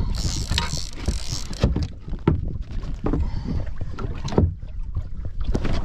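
Water slapping and knocking against the hull of a small boat, over a steady low rumble of wind on the microphone, with a short hiss in the first second.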